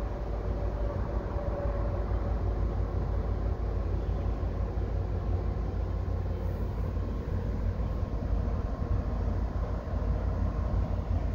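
Steady low rumble of a vehicle in motion, with a faint steady whine above it.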